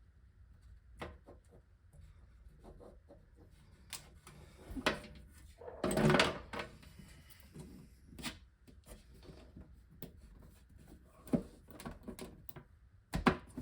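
Plastic aquarium hood and LED light strips being handled: scattered clicks, taps and rubbing, with a louder scrape about six seconds in.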